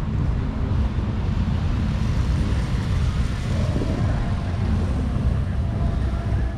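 Steady low rumble of wind buffeting a handheld camera's microphone outdoors, with faint voices in the background around the middle.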